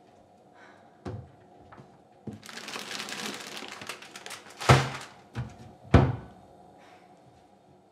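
Kitchen cupboard door knocking open, then plastic-wrapped packets crinkling as they are pulled off the shelf. This is followed by a few sharp thumps as the packets are set down and the cupboard door is shut.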